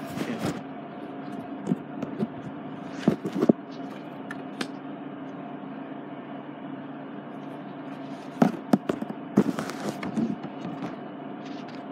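Handling noise: scattered clicks, taps and rustles, heaviest a few seconds in and again past the middle, over a steady hum.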